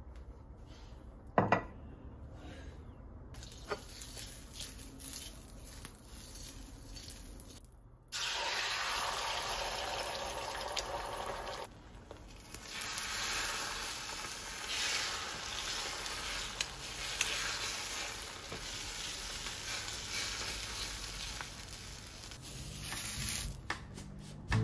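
Beaten eggs sizzling in hot oil in a stainless steel frying pan, with the sizzle starting suddenly about a third of the way in and a utensil stirring in the pan. A single sharp knock comes about a second and a half in.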